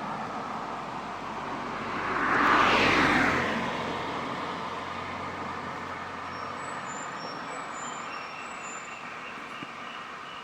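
A road vehicle passing by, its engine and tyre noise swelling to a peak about two and a half seconds in and then fading slowly.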